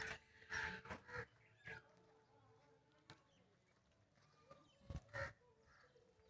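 Crows cawing: a run of short harsh caws in the first two seconds, then two more about five seconds in.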